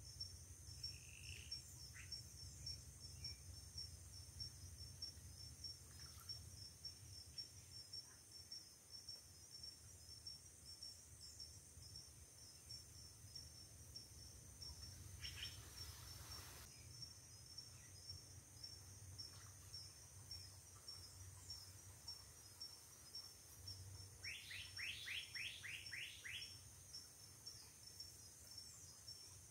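Insects, crickets among them, trilling steadily with a fast, even pulse of high chirps. Birds call briefly now and then, and near the end one gives a quick run of about seven short falling notes.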